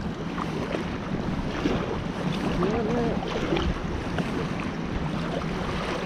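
River water rushing past a kayak, with wind rumbling on the camera's microphone. A faint wavering tone sounds briefly near the middle.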